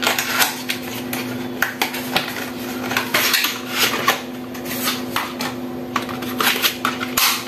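Scattered light clicks, taps and scrapes of small hard parts being handled: an SSD and the hard-drive caddy it is being fitted into. A steady low hum runs underneath.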